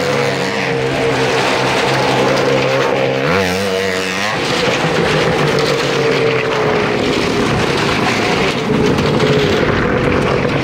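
Motorcycle engines running in a wooden well-of-death drum, the pitch rising and falling as the bikes circle, then settling into a steadier, slowly falling note.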